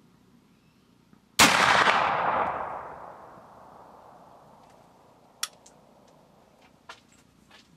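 A .50-caliber percussion-cap muzzleloader rifle fires one shot of a patched round ball over a black powder charge, a single loud report about a second and a half in that rolls away over the next two seconds. A few light clicks follow near the end as the rifle is lowered and handled.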